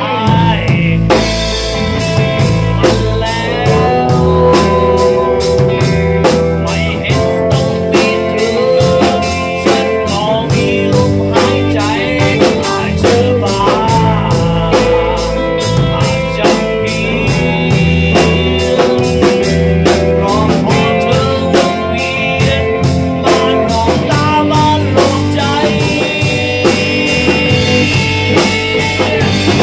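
Rock band playing live: a male singer sings into a microphone over guitar, steady low bass and a drum kit beating at an even pace.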